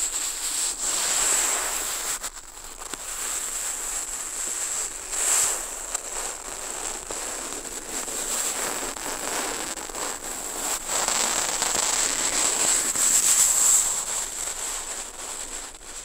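Ink-laden brush of bundled dry plant fibres scraping and crackling across paper, picked up close through a contact microphone on the sheet. A continuous scratchy crackle that swells with the stronger strokes, loudest about five seconds in and again near the end.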